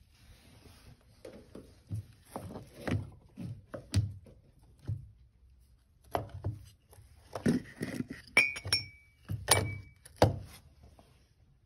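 Metal EGR valve and throttle body parts being handled on a workbench: irregular clinks and knocks, with two brief metallic rings a little past the middle and a sharp knock near the end.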